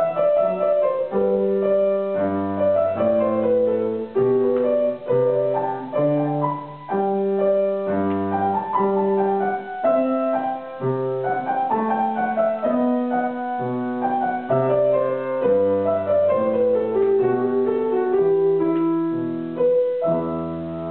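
Grand piano played solo: a flowing melody of separate notes over lower bass notes, ending with a held chord near the end that slowly dies away.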